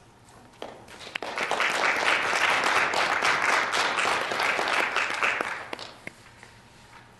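Small audience applauding: a few scattered claps about a second in, then a quick swell into steady clapping that dies away after about five seconds.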